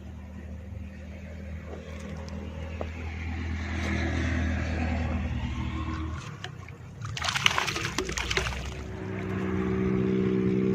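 A motor engine hums steadily and grows louder toward the end. About seven seconds in comes a loud burst of splashing water lasting about a second and a half.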